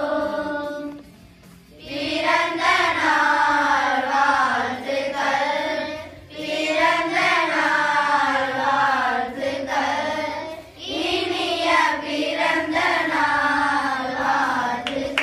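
A group of children singing a Tamil song together in unison, in sung phrases with short pauses between them: one about a second in, and again around six and eleven seconds.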